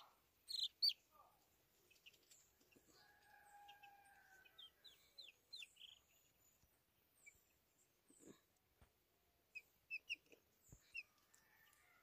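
Baby chicks peeping faintly in short, high chirps that come in scattered clusters, loudest about a second in and again near the end, with a few longer, steadier calls a few seconds in.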